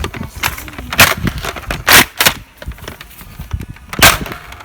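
Several sharp knocks and clicks at uneven intervals, loudest about two seconds in and again near the end.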